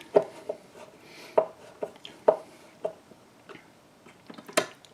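Hand tool clicking and knocking against metal as screws are tightened on a racquet stringing machine: irregular, separate clicks, with a louder knock near the end.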